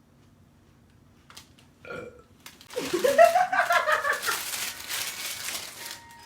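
A woman's long, loud burp lasting about three seconds, its pitch rising and then sinking. A short sound comes just before it, about two seconds in.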